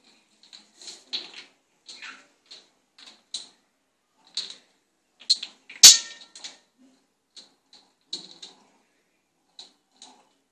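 A bottle cap batted around by two kittens on a hard tiled floor: irregular light clicks and taps, with one louder knock that rings briefly about six seconds in.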